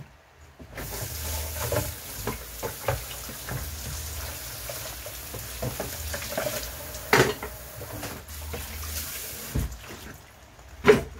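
Wet spinach leaves sizzling in hot olive oil in a frying pan, a steady hiss with many small crackles that starts about a second in and dies away near the end. A single knock near the end.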